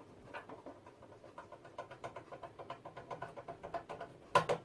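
A screw being driven into a deep mounting hole in a computer case: a run of small, quick clicks from the screwdriver and screw, about five a second, with a couple of louder knocks near the end.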